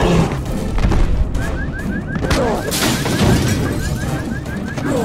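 A heavy crashing impact, then from about a second and a half in a car alarm chirping with quick, rising beeps, about four or five a second, over rumbling film score.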